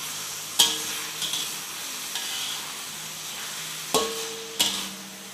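Beef for rendang cooking in its own juices in a pot with a steady sizzle over medium heat, while a metal utensil stirs it. The utensil knocks against the pot three times, once near the start and twice about four seconds in, each knock ringing briefly.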